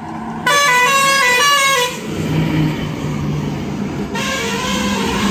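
An approaching truck's horn sounds a quick run of stepped, changing notes for just over a second, the loudest thing here. The truck's diesel engine rumble then grows louder as it comes nearer.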